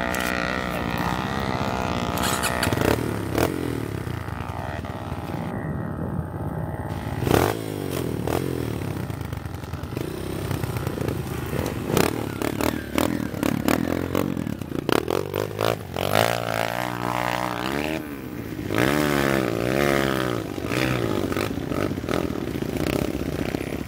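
Dirt bike engines idling and revving, the pitch sweeping up and down again and again, with scattered knocks and clatter. Near the end one bike revs hard as it churns through deep mud.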